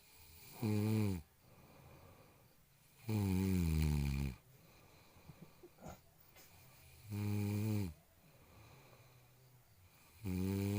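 A person snoring loudly, four long snores about three seconds apart. Each is a drawn-out rasping tone that sinks in pitch, and the last one begins near the end.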